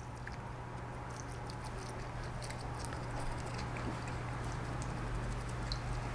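Faint small clicks and soft patter of metal differential gears being handled and cleaned in a solvent bath, over a steady low hum.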